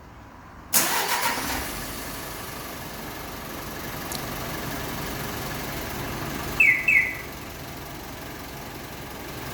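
The Hyundai Mighty truck's diesel engine starts by remote command: a sudden burst about a second in, settling quickly into a steady idle. Two short electronic chirps come about two-thirds of the way through.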